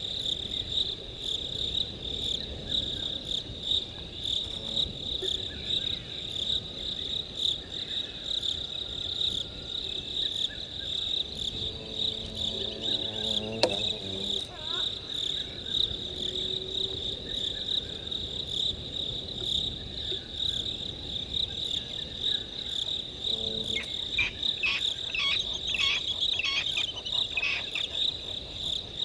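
Night chorus of crickets trilling steadily on one high pitch. A sharp click comes about halfway through, and near the end there is a spell of rapid chattering calls from another animal.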